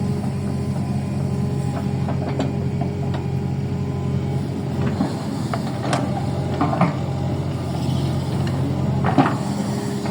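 Small electric motor of a toy excavator humming steadily as it works, with scattered light clicks and knocks from its moving parts and the soil.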